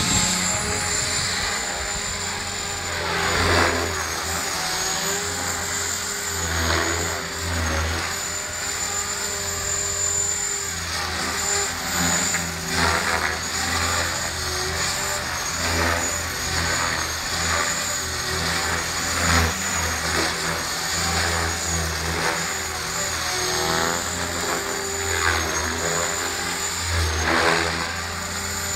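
Align T-Rex 500 radio-controlled helicopter in flight: a steady, slightly wavering high whine over rotor noise that swells and fades again and again as it manoeuvres.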